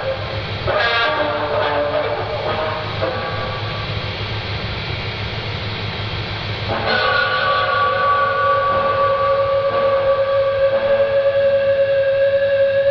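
Dark ambient drone music: a dense, noisy layered texture, then about seven seconds in a steady chord of held tones comes in, a little louder, with a horn-like sound.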